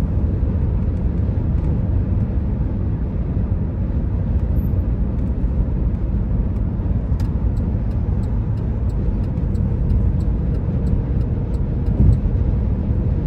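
Steady low rumble of road and wind noise inside a car cruising at highway speed. From about halfway through there are faint scattered ticks.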